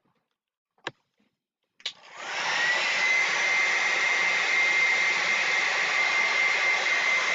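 Two clicks of a switch, then an electric hair dryer switched on: its motor spins up with a quickly rising whine that settles into a steady high whine over the rush of blown air.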